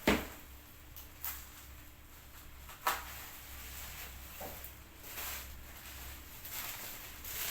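Handling noise from unpacking: sharp knocks and clicks of hard items being picked up and set down, the loudest right at the start and another about three seconds in, followed by a stretch of rustling.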